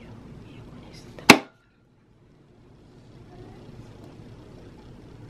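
A single sharp click about a second in, followed by about a second of dead silence, with faint steady room noise before and after.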